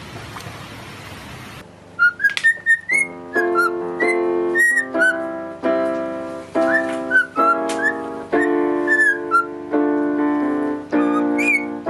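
Cockatiel whistling a tune in short, chirpy gliding notes over a sustained chord accompaniment, after a brief wash of river water noise at the start.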